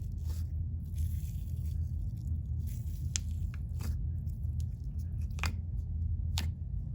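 Hands squishing and stretching a soft, chubby chocolate sleigh slime, with a few sharp bubble pops scattered through it.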